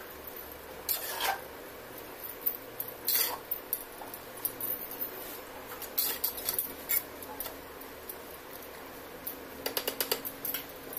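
A spatula scraping and knocking against the inside of an earthen clay pot as a thick mutton curry is stirred, in scattered strokes with a quick run of taps near the end.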